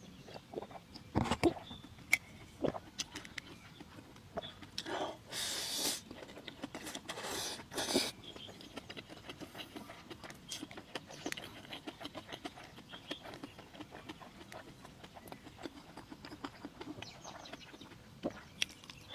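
Chickens clucking now and then, with scattered small clicks and a few short, louder noisy bursts.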